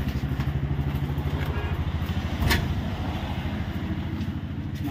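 A small engine running steadily with a rapid, even beat, and a single knock about two and a half seconds in.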